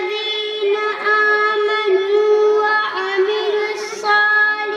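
A young girl singing into a microphone in a melodic religious chant, holding long notes at nearly one high pitch with short breaks between phrases.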